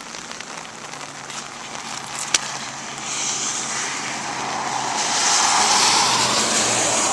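Rain falling, with a rushing hiss that builds from about three seconds in and is loudest near the end, over a faint steady low hum.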